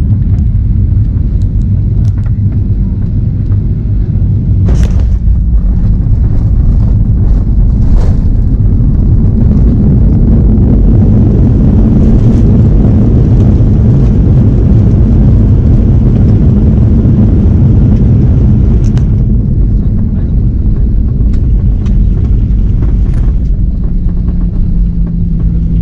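Airliner cabin noise during landing: a loud, steady low rumble of engines and airframe that swells louder and fuller for several seconds around the middle, with two sharp knocks about five and eight seconds in.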